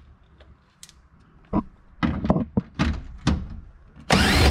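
A string of separate knocks and thunks from hands and tools working on the underbody panel fasteners beneath the car, then a louder, harsher burst with a rising whine near the end.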